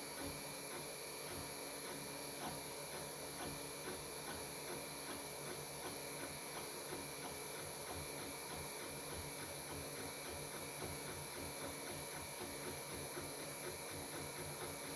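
Geeetech A10 3D printer printing: its stepper motors hum and whine in quick, irregular moves over a steady high hiss.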